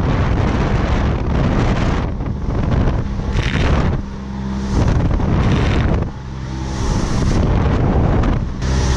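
Motorboat running fast on its outboard engine trimmed up too far, so the hull is porpoising: engine, rushing water and wind on the microphone swell and dip about every two seconds as the bow bounces up and down.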